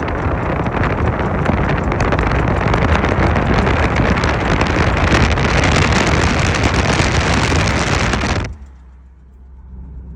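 Car driving with loud road and wind noise and a rapid, dense clicking from the aftermarket front brake caliper. The owner puts it down to the brake pads having a lot of play in the caliper. All of it cuts off sharply about eight and a half seconds in, leaving a low hum.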